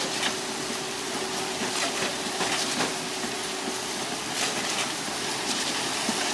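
Concrete pump running: a steady rushing noise with a constant hum, and scattered short knocks and scrapes.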